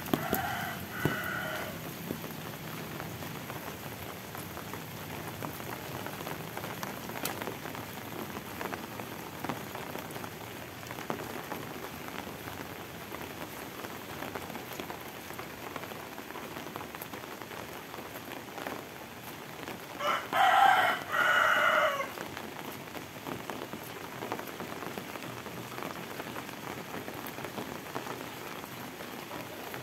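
Steady rain falling, with a rooster crowing twice: a short crow just after the start and a louder, longer two-part crow about two-thirds of the way through.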